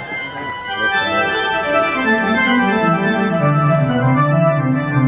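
Live electronic keyboards played with an organ sound: held chords over a bass line that steps downward in the second half.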